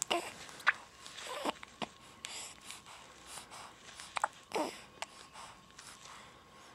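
A woman hiccuping several times, each a short sharp catch of the voice, with breathing between the hiccups.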